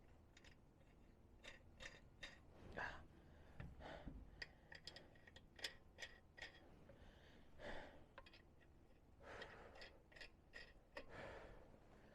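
Faint, scattered metallic clicks of lug nuts being threaded onto wheel studs by hand, with a few soft breaths.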